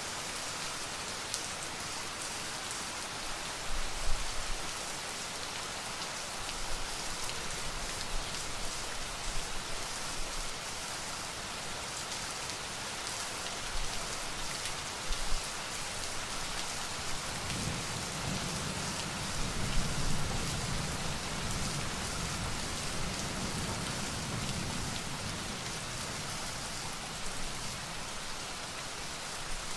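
Steady rain falling and pattering, with a low rumble of thunder rolling for several seconds a little past the middle.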